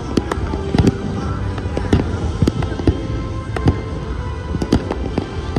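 Fireworks display: aerial shells bursting in quick, irregular succession, a dozen or so sharp bangs over a continuous low din of further explosions and echo.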